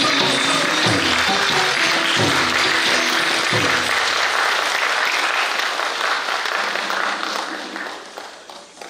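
Audience applauding while the last low notes of the accompanying music die away in the first few seconds; the applause fades out near the end.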